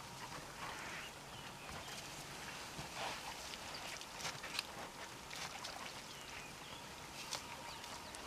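Faint bush ambience at a watering hole: scattered short bird calls, with a few brief sharp clicks or splashes.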